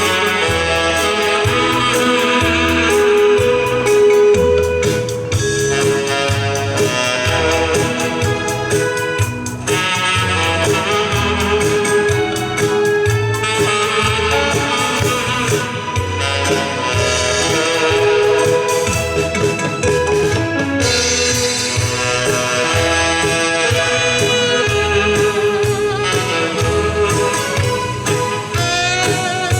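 Tenor saxophone playing a slow melody in long held notes over band accompaniment with a steady bass beat.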